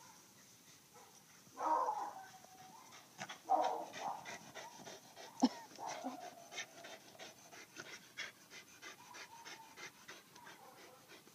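Jack Russell terriers panting quickly and evenly after running, the panting plainest in the second half. A couple of short, louder sounds come in the first few seconds, and a sharp click about five and a half seconds in.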